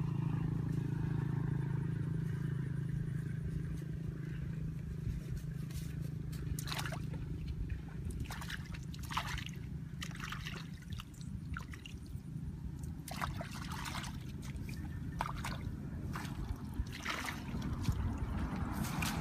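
Hands working in shallow muddy water: sloshing and trickling, with a string of short splashes from about six seconds in.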